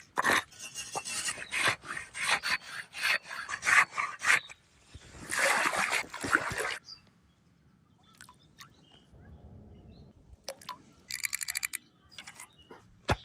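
Repeated rough scraping or rubbing strokes, then one longer steady scrape. After a quieter pause comes a brief fast rattle and a single sharp click near the end.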